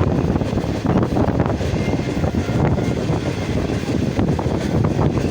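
Passenger train running past, a steady rumble of wheels and coaches with wind on the microphone.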